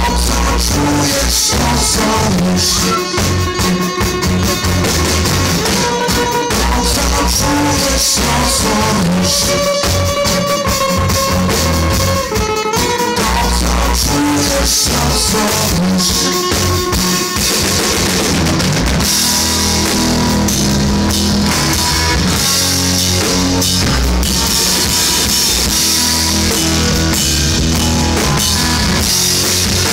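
Live band playing a rock song, loud and continuous, with an acoustic guitar among the instruments and a steady beat.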